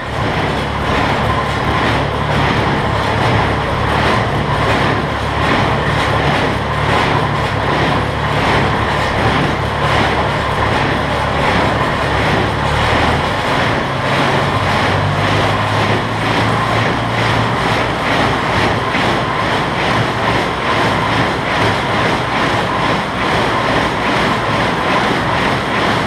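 New Holland 275 square baler running empty at PTO operating speed, its finger feed mechanism cycling with a steady, even mechanical rhythm over the hum of the tractor driving it.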